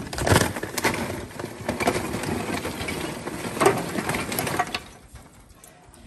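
Charcoal tumbling out of a paper bag into a grill's firebox, an irregular clattering rattle of lumps that dies down near the end.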